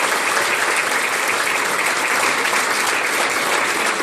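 Audience applauding, a dense and steady clapping from a large crowd.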